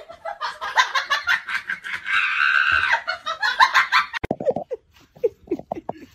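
A person laughing hard in quick repeated bursts for about four seconds, then a few short, lower sounds.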